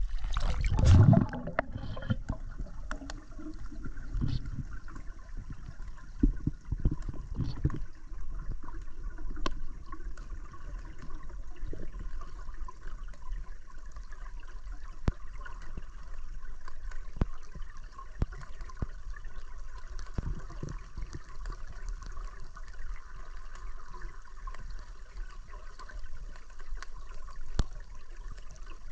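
Water surging about a second in as the camera goes under the river surface, then the muffled sound of murky river water heard through an underwater camera: a steady low rush with many scattered small clicks.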